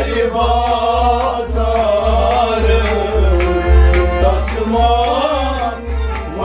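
A man singing to a harmonium, with a pot drum struck by hand in a steady beat of about two strokes a second.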